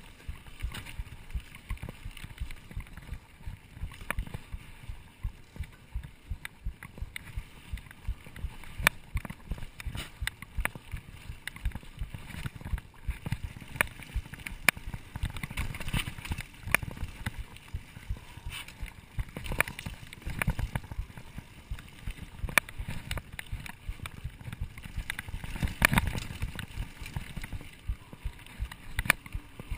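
Mountain bike riding over a rough dirt singletrack: a steady low rumble of tyres and air on the microphone, with frequent sharp knocks and rattles from the bike jolting over bumps and roots.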